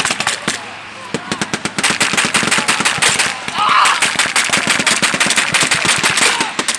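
Machine guns and rifles firing blanks in a sustained exchange: rapid bursts of shots packed closely together, with a short thinner spell about a second in before the shooting thickens again.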